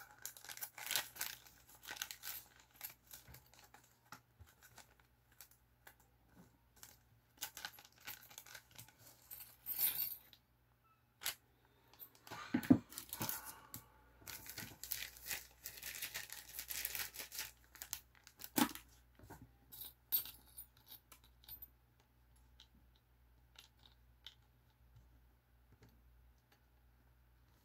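Small clear plastic parts bag being handled and torn open, crinkling in bursts, with small metal screws clicking against each other and the table.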